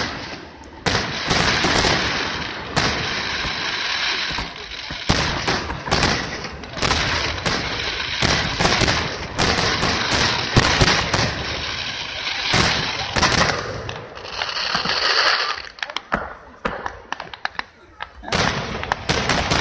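Aerial fireworks shells bursting in quick succession: many sharp bangs over a near-continuous crackle. It thins out briefly near the end before more bangs follow.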